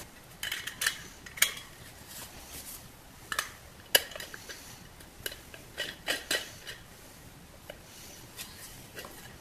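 Scattered light clinks and taps of metal on a stainless steel pot lid as a screw is fitted through its centre to attach the knob. The sharpest tap comes about four seconds in, with a quick run of clicks around six seconds.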